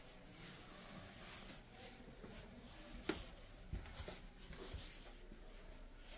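Faint rustling and handling noise from someone moving through a small wood-panelled room, with a few light knocks: a sharp click about three seconds in, then a soft low thump.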